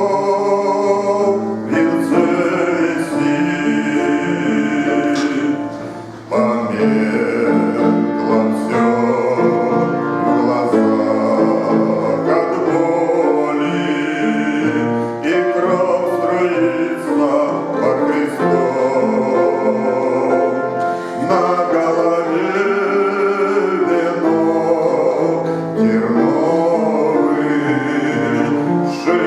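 A man singing a Christian song in Russian to instrumental accompaniment, with a brief pause between phrases about six seconds in.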